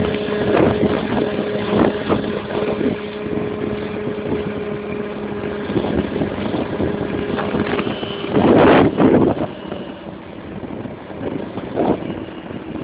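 Romet 727 Eco scooter engine running at a steady pitch with wind noise on the microphone. About eight and a half seconds in comes a loud rush of noise, after which the steady engine note drops away and the sound gets quieter.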